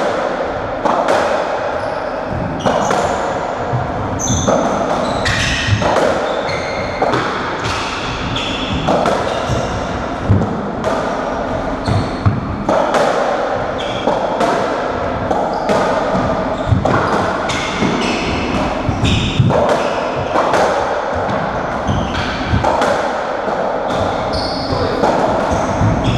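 Racketball rally on a squash court: repeated sharp smacks of the ball off the rackets, the walls and the wooden floor at an irregular pace, echoing in the enclosed court.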